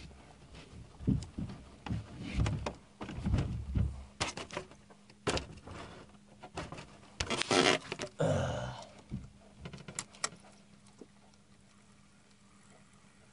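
Irregular knocks, clicks and low thumps of fishing gear and the camera being handled in a small boat, with a louder rustling scrape about seven seconds in. It goes much quieter after about nine seconds.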